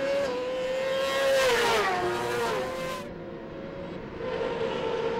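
Racing superbikes at full throttle on the straight. The nearest engine's note climbs with a brief dip at a gear change, then falls in pitch as it passes close about one and a half seconds in. The sound drops back a little after three seconds, and more bikes are heard running on from about four seconds.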